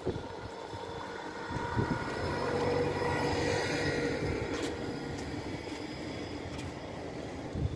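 A vehicle or machine engine hum that swells to a peak about three seconds in and then fades.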